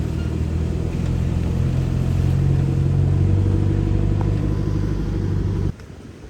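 Off-road 4x4's engine running under load, a steady low drone that grows a little louder midway, then cuts off suddenly near the end.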